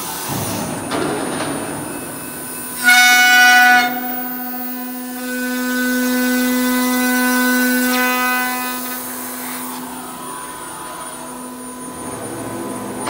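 Spindle of a 4-axis CNC processing centre for aluminium profiles whining at a steady pitch, starting about three seconds in with a louder, harsher first second and then running evenly until near the end. Before it there is a steady mechanical hiss of the running machine.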